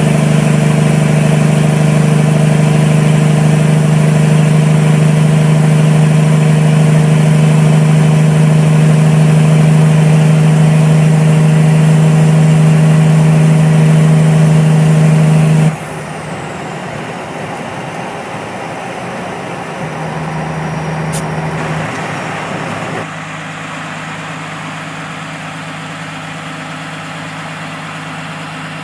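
Engine of a Kenworth T604 tow truck with 7-inch straight stacks, heard from inside the cab as a loud, steady drone at cruising speed. About halfway through it cuts off suddenly to a quieter, steady engine idle heard from outside the truck.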